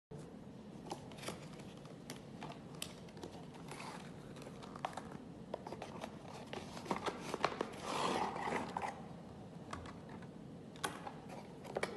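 Cardboard packaging being opened and unpacked by hand: small taps and clicks of card and plastic against a wooden tabletop, with a longer stretch of rustling packaging about eight seconds in as the antenna is drawn out.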